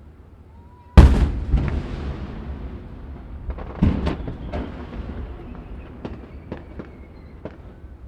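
Aerial fireworks: one loud shell burst about a second in, with a long rolling echo that dies away, a second, smaller bang near the middle, then scattered sharp pops and crackles.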